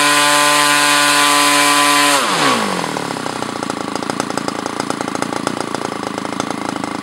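O.S. GT33 33cc single-cylinder gasoline engine turning an APC 18x8 propeller at full throttle, about 8,875 RPM, with a steady high-pitched tone. A bit over two seconds in the throttle is pulled back and the revs fall quickly to a lower, pulsing idle.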